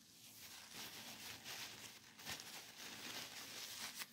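Faint rustling and handling noise as a paper tissue is pulled out and brought up to the face, with a soft knock a little over two seconds in.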